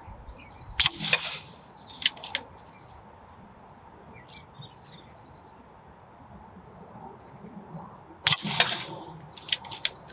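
Daystate Alpha Wolf PCP air rifle fired twice, each shot a sharp report, the first about a second in and the second near the end. Each shot is followed about a second later by two quick clicks, the side lever being cycled to load the next pellet. Birds chirp faintly in between.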